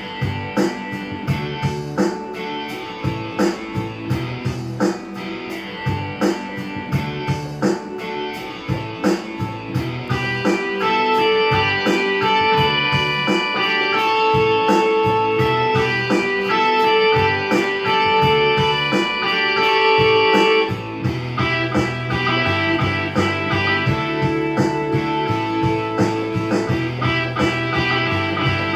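Rock instrumental played on a digital piano in a guitar-like voice over a played-back backing track with a steady drum beat and bass. Long held melody notes come in about a third of the way through, and the accompaniment changes to a busier bass pattern past the middle.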